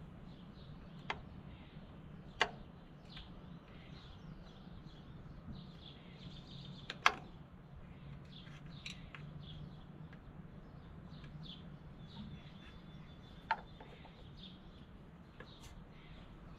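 Small birds chirping over a faint low hum, with a few sharp clicks and taps, the loudest about seven seconds in, as hands work the spark plug wires and their clips on a tractor engine.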